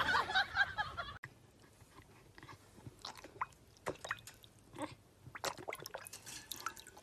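Dog lapping and slurping water from a plastic bowl: irregular wet clicks and small splashes. A louder sound from the previous clip ends about a second in.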